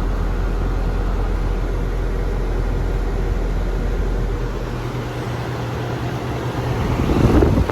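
Newly installed Lennox 2.5-ton central air conditioner condenser running: a steady low hum from the compressor under the rush of its fan, with the unit visibly shaking. A louder rushing swell comes near the end.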